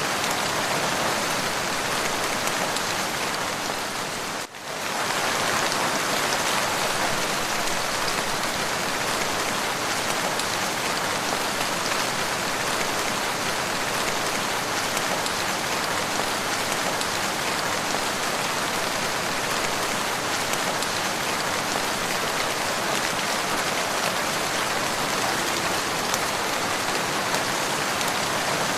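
Steady rain falling, an even hiss of many drops, with a brief dip in level about four and a half seconds in.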